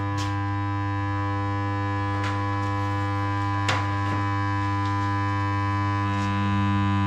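Arc welder humming steadily while switched on with no arc struck yet, with a few light clicks and knocks from the electrode holder and welding helmet being handled.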